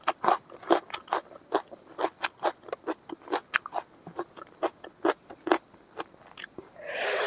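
Close-up chewing and biting of fried chicken on the bone: a quick run of wet mouth clicks, smacks and crunches, several a second. Near the end a longer, noisier sound begins.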